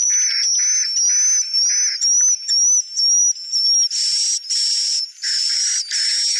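Swiftlet lure call played from a recording: repeated buzzy chirps about two a second, over a steady, warbling high whistle and faint rising sweeps. From about four seconds in, the chirps turn brighter.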